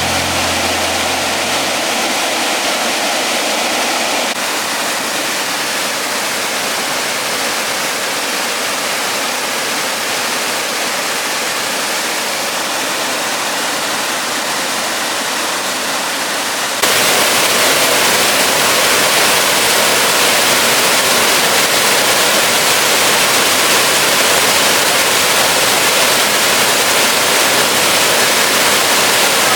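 Waterfall, a steady rush of falling water. The sound changes abruptly about 4 seconds in and again about 17 seconds in, where it becomes louder.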